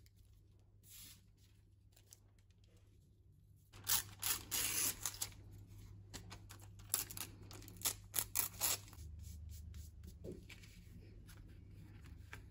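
Printed book-page paper being torn by hand: a rasping rip about four seconds in, then a run of several short tears a few seconds later.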